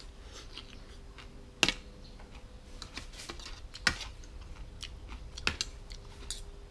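Metal spoon and fork clinking and scraping on a ceramic plate of rice while eating, a scatter of light ticks with sharper clinks about one and a half, four and five and a half seconds in.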